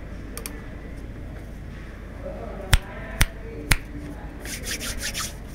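Keystrokes on a Tokyo60 mechanical keyboard fitted with Marshmallow switches: three single sharp presses about half a second apart, then a quick run of lighter key clicks near the end.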